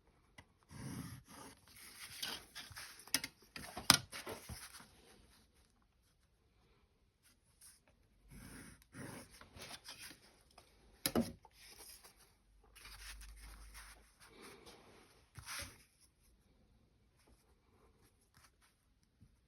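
Pencil scratching as lines are drawn on paper, in two spells, with a few sharp clicks of tools being handled or set down, the loudest about four seconds in.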